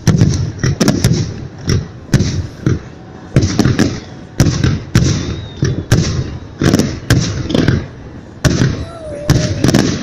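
Victory Day fireworks salute: many sharp bangs of bursting shells in quick, irregular succession, each with a short echo.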